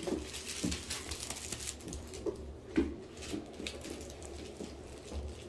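A puppy moving about on a hard vinyl floor and mouthing a fleece rope toy: scattered soft claw taps and rustles.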